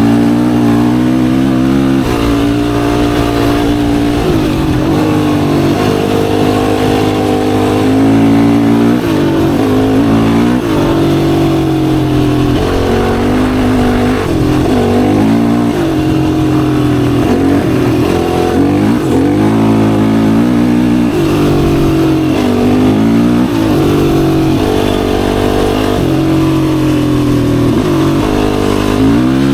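Yamaha YFZ450R's single-cylinder four-stroke engine under riding load. The pitch climbs and drops repeatedly as the rider works the throttle and shifts gears, with brief dips where the throttle closes.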